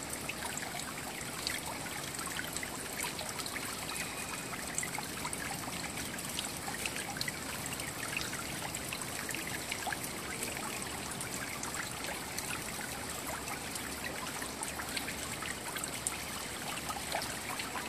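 Steady running, trickling water with small ticks and clicks scattered through it.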